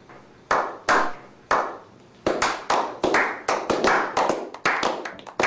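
Hand claps: three single claps about half a second apart, then a quicker run of claps at roughly five or six a second.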